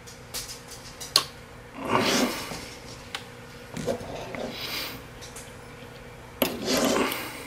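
Small parts and tools being handled on a workbench: a few light clicks, then two short bouts of rustling and scraping, about two seconds in and near the end.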